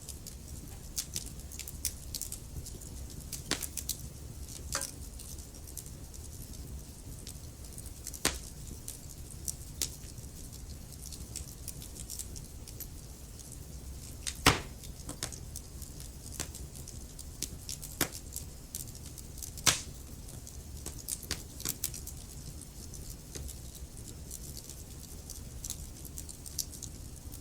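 Wood fire in a fireplace crackling, with irregular sharp pops over a low steady rumble of burning; the loudest pops come about halfway through and again a few seconds later.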